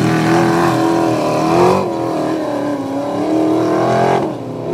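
Formula Offroad buggy's engine at high revs under full load as it climbs a steep sand hill. Its pitch dips briefly about two seconds in, then falls near the end before a short rev.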